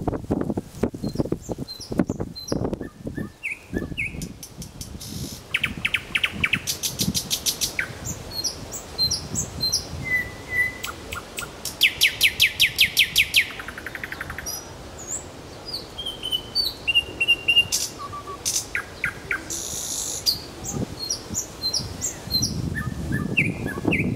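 Nightingale singing: a sequence of varied phrases with short pauses between them, mixing clear whistled notes, chirps and fast trills of repeated notes. The loudest is a rapid rattling trill about halfway through.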